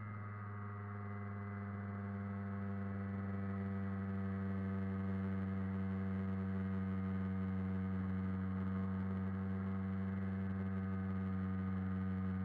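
Small moped engine running at a steady cruising speed, a constant hum that gets a little louder over the first few seconds.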